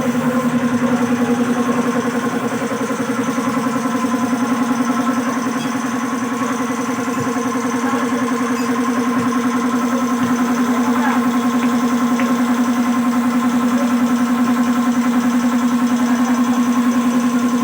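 Kawasaki Fury 125 motorcycle engine running steadily at idle.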